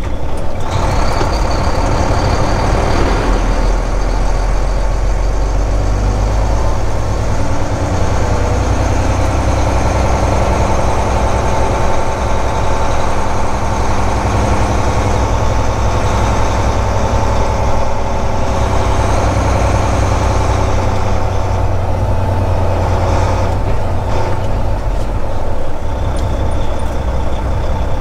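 Volvo VNL780 semi truck's diesel engine heard from inside the cab, running steadily with its pitch shifting a few times as the truck is driven slowly. A brief hiss of air near the end.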